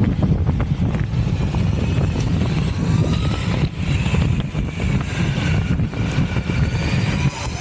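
Wind buffeting the microphone and the low rumble of an Evolve electric all-terrain skateboard's tyres rolling on tarmac. From about three seconds in, a faint electric motor whine rises and falls in pitch.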